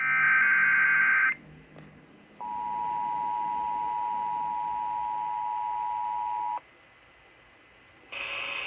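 Emergency Alert System tones relayed over radio: a burst of shrill digital header data for about a second, then the steady two-tone attention signal held for about four seconds, and another burst of data tones starting near the end. They announce a tropical storm warning.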